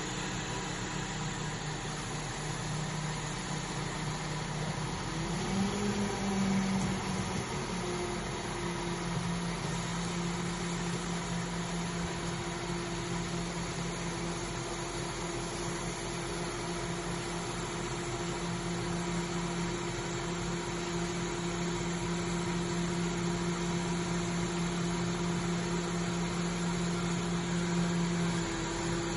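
Crane's engine running with a steady hum while it lowers a heavy wall panel, its pitch rising and getting louder briefly about five seconds in.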